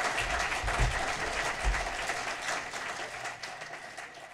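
Audience applauding, many hands clapping at once, dying down near the end.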